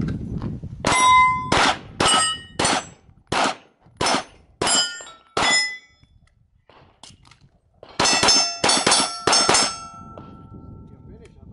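Pistol shots fired at steel targets, each hit answered by the ring of a steel plate. A string of about nine shots, a lull of about two seconds, then a faster burst of about seven shots, the last plates ringing on for about a second.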